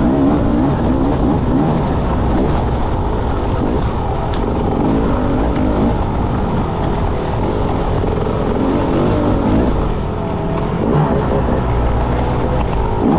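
Enduro motorcycle engine being ridden hard, its revs rising and falling again and again with the throttle, loud throughout.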